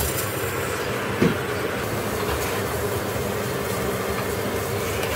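Diced pork fat frying in a mix of butter and vegetable oil under a glass lid: a steady sizzle, with one short knock about a second in.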